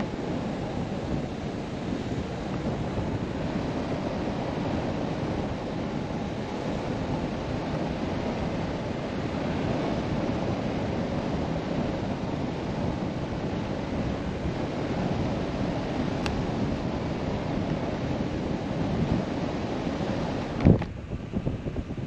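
Wind rushing steadily over the microphone, a dense rumbling hiss with no voice or engine in it. Near the end comes a single sharp knock, after which the rush is quieter.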